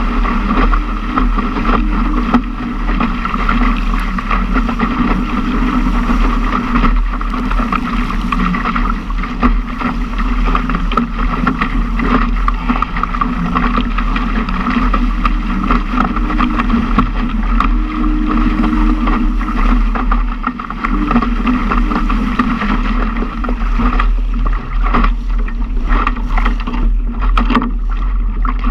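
Water rushing and splashing against the hull of a Laser sailing dinghy driven hard in strong wind, mixed with steady wind noise on the microphone. Near the end, a run of short sharp noises.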